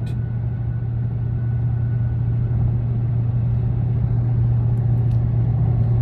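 A steady low rumble with a constant low hum and a faint hiss, unchanging throughout.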